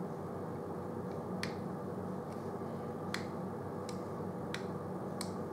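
Small sharp clicks, about seven in all, roughly every three-quarters of a second, from the fire button of a box mod being pulsed to dry-fire a dual Clapton coil build so that the coils glow and heat evenly. A steady low hum runs underneath.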